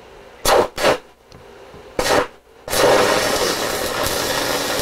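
Stick-welding arc from a 5/32-inch 6010 electrode overdriven at 215 amps, well past its usual limit of about 165 amps. Three short bursts come as the rod is struck. About two and a half seconds in, the arc catches and burns on steadily and loudly.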